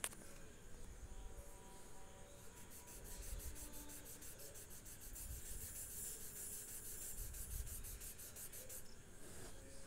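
Soft pastel stick scraping back and forth across paper in quick, even strokes while colouring in. It starts a couple of seconds in and stops about a second before the end, with a small click at the very start.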